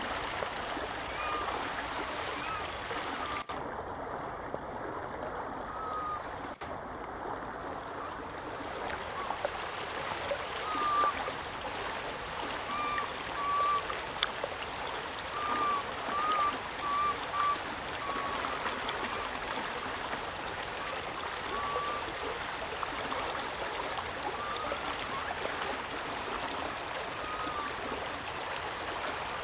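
Steady rush of running water, like a stream, with short high chirping calls scattered through, most of them in the middle stretch.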